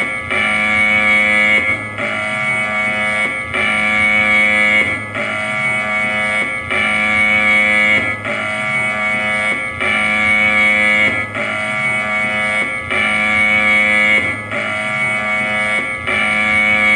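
Electronic air raid siren sounding a repeating pulsed signal of steady, unchanging tones, one cycle about every one and a half seconds.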